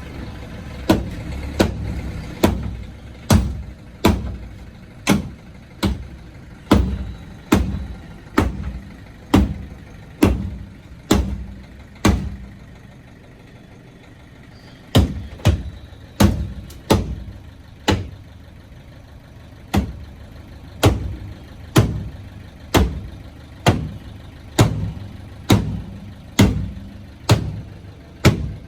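Hammer blows on a car's boot panel, sharp metal strikes about once a second, over a vehicle engine idling. The hammering pauses for about three seconds midway, then carries on at the same pace.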